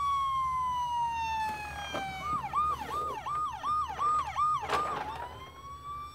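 Playmobil toy ambulance's electronic siren. It gives a long falling wail, then about two seconds in switches to a quick up-and-down yelp about three times a second, then goes back to a slow rise and fall.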